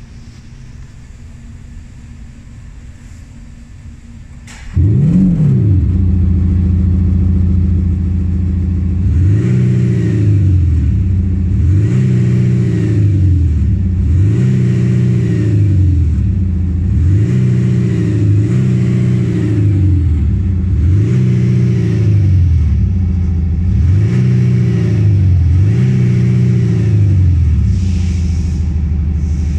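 Audi A5 3.0 TDI diesel fitted with a Maxhaust Active Sound Booster, which plays an artificial V8 exhaust note. A quiet low idle gives way, about five seconds in, to the loud synthetic note cutting in with a rev. Repeated revs follow, rising and falling every two seconds or so, before it settles into a steady idle near the end.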